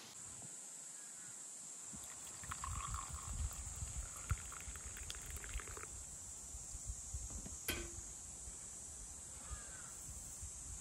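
Coffee poured from a glass server into a ceramic cup, a few seconds of trickling liquid, with a sharp click a couple of seconds later. A steady high insect chorus runs underneath.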